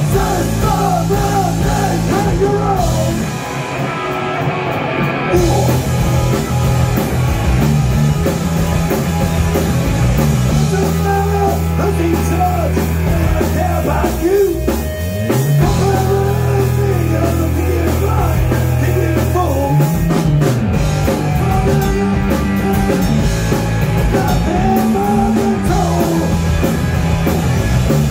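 Live rock band playing: electric guitar, electric bass and drum kit, with a male lead singer.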